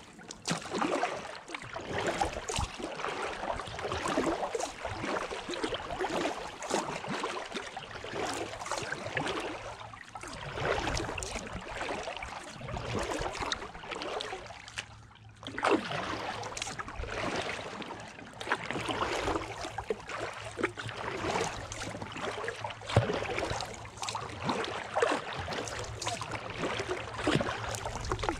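Kayak paddle strokes in calm water, each blade dipping and dripping in a steady rhythm about once a second, with a brief pause about halfway through.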